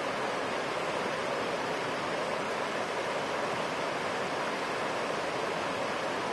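Steady rushing of fast-flowing river water, an even noise with no breaks.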